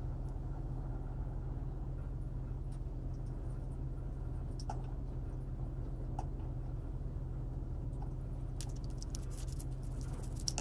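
Steady low hum with a few faint ticks, then, about two seconds before the end, a toothbrush scrubbing a small white plastic part in soapy water: a rapid run of scratchy brush strokes.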